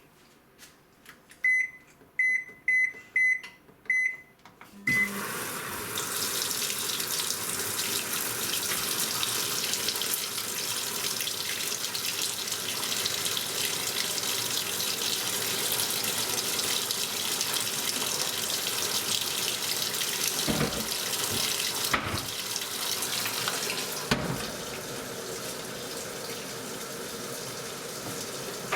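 AQUA top-loading washing machine beeping about six times as its control panel buttons are pressed, then water rushing steadily into the tub as the wash cycle starts filling. A few soft knocks come about two-thirds of the way in, and the flow drops a little just after.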